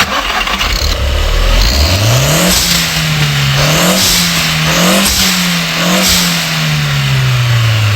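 Car engine revving: its pitch climbs steeply about two seconds in, rises and dips a few times, then slowly falls away.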